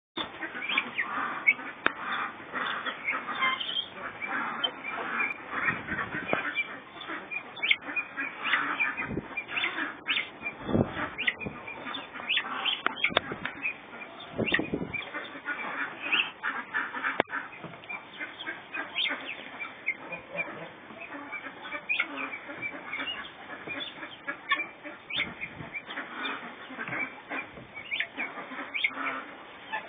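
A flock of guinea fowl calling non-stop, many short, high, harsh calls overlapping into a busy chatter.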